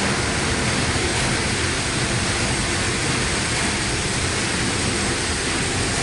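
Steady hiss of steam from the 1856 Harvey & Co. Bull engine, a Cornish steam pumping engine, while it runs under steam.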